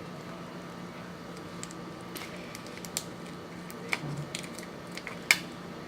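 Slime being handled by hand, giving a few scattered sharp clicks and small pops, the loudest about five seconds in, over a steady low hum.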